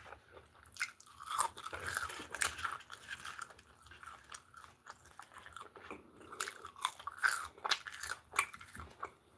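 Close-up chewing of a mouthful of breaded fried chicken burger, with irregular crunches as the crispy coating is chewed.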